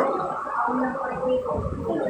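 People's voices at close range, mumbled or drawn-out vocal sounds rather than clear words, with a sharp knock right at the start.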